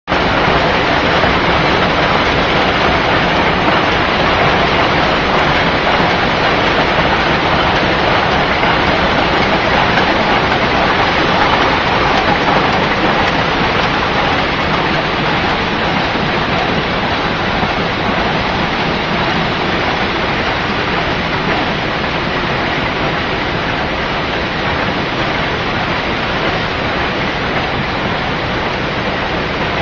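Sisal rope-making machine running, twisting and winding sisal rope: a loud, steady mechanical noise with no distinct beat.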